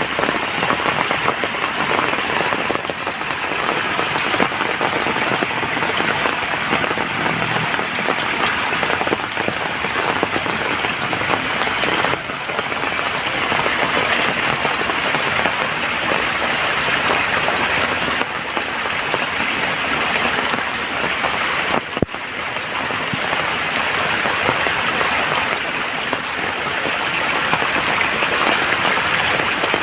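Heavy rain falling steadily on surfaces, a dense, even hiss with a brief click about two-thirds of the way through.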